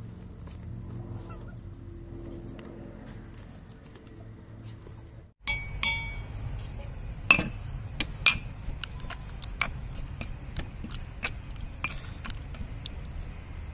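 A steel lid clinking off a mortar, then a pestle pounding tomato and king chilli chutney in the mortar: an irregular run of sharp knocks, two of the early ones loud and ringing. Before that, only a low steady hum.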